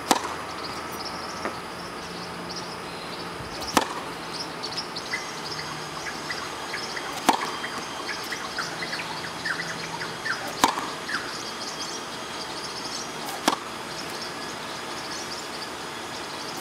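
Tennis racket striking the ball on serves: five sharp pops about three and a half seconds apart. Birds chirp faintly in the background.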